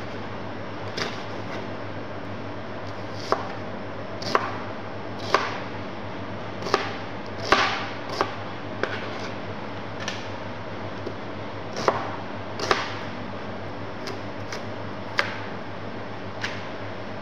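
Kitchen knife chopping vegetables (green chili, onion, carrot) on a plastic cutting board. Single cuts land irregularly about a second apart, each a sharp knock of the blade on the board, over a steady low hum.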